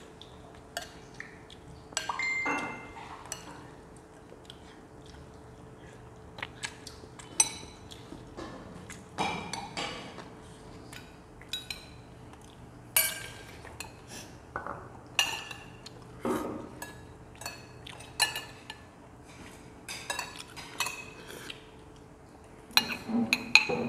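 Metal spoons and chopsticks clinking against ceramic bowls and plates during a meal: scattered short clinks and taps, irregular, a few each second.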